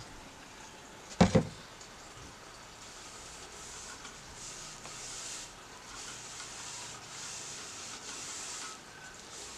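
Cloth rag rubbing boiled linseed oil along a wooden pickaxe handle, a soft hissing rub in several long strokes. Two quick knocks come about a second in.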